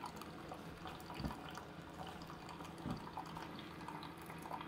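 Keurig K-Supreme coffee maker starting a brew cycle through a cleaning rinse pod: a faint steady hum from the machine with water trickling and dripping, and two soft knocks about a second and three seconds in.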